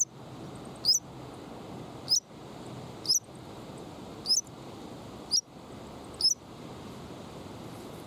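Steady wind noise with a short, high squeak that rises in pitch, repeated about once a second, seven times.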